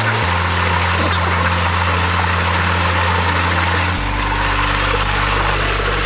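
Rushing water pouring through a small concrete channel. Underneath it is background music with long, low held notes that change pitch twice.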